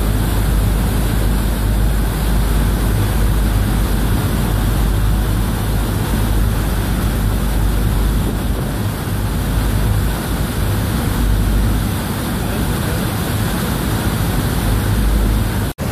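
Ferry's propeller wash churning at the stern in a steady rush, with wind on the microphone and a low engine rumble underneath.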